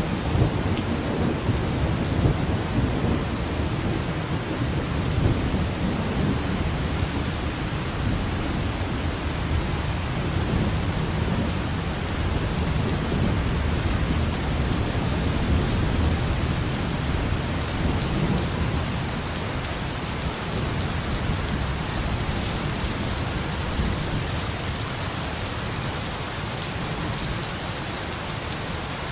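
Heavy rain falling steadily, with a low rumble of thunder underneath that dies away over the last several seconds.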